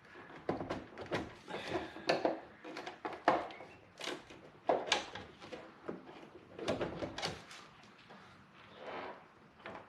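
Irregular plastic knocks, creaks and scrapes as a side mirror glued to a car's door panel is worked and pried loose.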